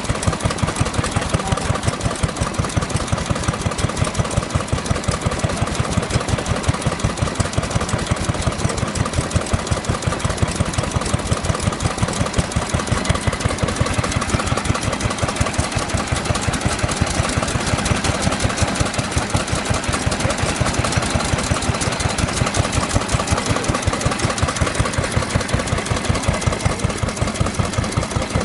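Early-Showa Kubota Type F single-cylinder stationary engine running steadily at low speed, with even firing beats about three a second.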